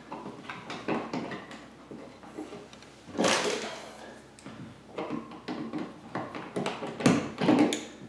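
Small handling noises of electrical work: clicks, taps and rustling as stripped wires are pushed into a plastic push-in wire connector in a plastic wall box, with a brief louder rustle about three seconds in.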